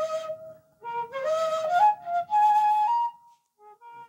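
Background music: a breathy solo wind instrument playing a slow melody of held notes, stepping up in pitch in the middle and growing quieter near the end.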